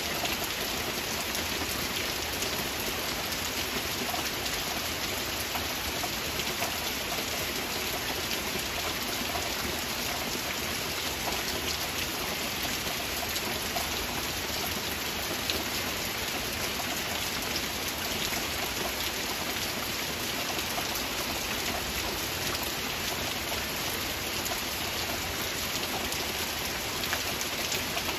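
Steady heavy rain falling, a dense even wash of sound dotted with many small drop impacts.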